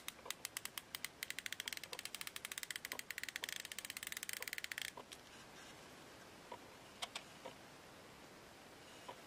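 Drag clicker on an ABU Ambassadeur 4500C baitcasting reel ticking as the drag slips: quick clicks that speed up into a fast rattle of ticks, stopping suddenly about five seconds in. A few single clicks follow later.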